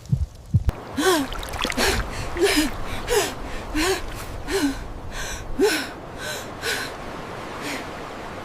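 A few low heartbeat-like thuds, then a quick series of about ten breathy, gasping cries, each rising and falling in pitch, growing weaker near the end.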